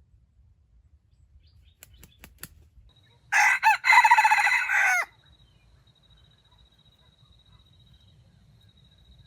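A rooster crows once, about three seconds in. It is a loud call of under two seconds that falls in pitch at the end, and a few sharp clicks come just before it.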